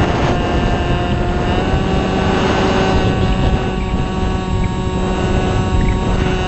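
Onboard sound of a Multiplex Shark RC plane in flight: its motor and propeller running with a steady whine that steps up slightly in pitch about one and a half seconds in, over heavy wind buffeting on the camera's microphone.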